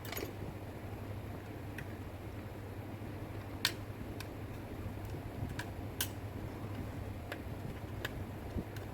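Scattered sharp clicks and taps, about seven of them at uneven intervals and the loudest about three and a half seconds in, from parts of the router being handled. They sit over a steady low hum.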